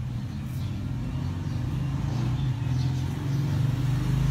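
Low, steady engine rumble, like a motor vehicle running, growing slightly louder toward the end.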